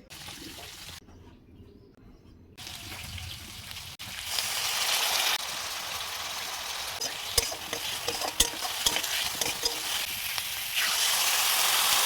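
Food frying in hot oil in a pan, with a steady sizzle and a spatula stirring and clinking against the pan. The sizzle is quieter at first and becomes much louder about four seconds in.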